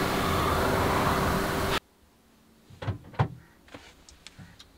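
Car driving on the road, with loud road and wind noise and a steady hum, which cuts off suddenly about two seconds in. After that it is quiet inside the parked car apart from a few short clicks and knocks as the rear door is handled.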